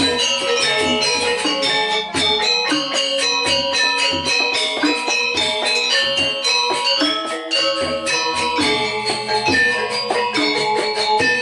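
Balinese gamelan music: bronze metallophones and gongs struck in a fast, dense rhythm, with ringing pitched notes throughout.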